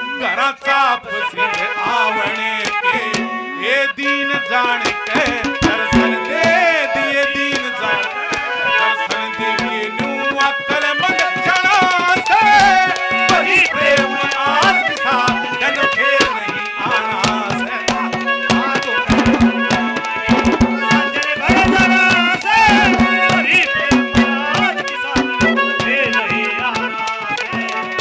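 Live Haryanvi ragini music: a male voice singing with wavering held notes over a harmonium and hand percussion played on a drum and clay pots.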